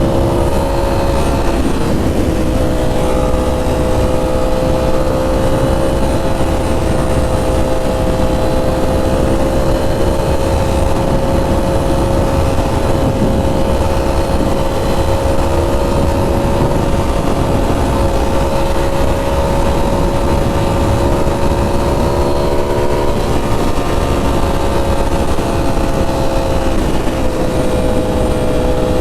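Ducati Streetfighter V4 S's V4 engine through an SC Project titanium 2-1-2 exhaust, running at steady revs while being ridden. The engine note holds almost level, dipping briefly about two seconds in and shifting slightly twice near the end, over a steady low rushing noise.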